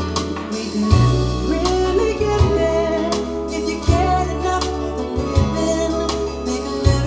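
Music with a sung vocal played through Klipsch R-41M bookshelf speakers and heard in the room: deep sustained bass notes, with a sharp drum hit about every one and a half seconds.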